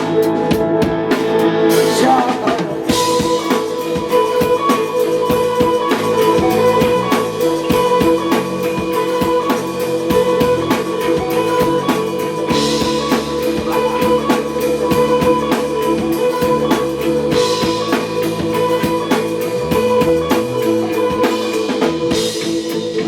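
Live band playing an instrumental passage: a full drum kit with cymbal crashes every few seconds under sustained guitar.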